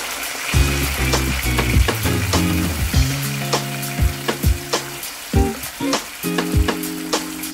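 Raw chicken pieces sizzling in hot oil in a wok, over background music with a steady beat.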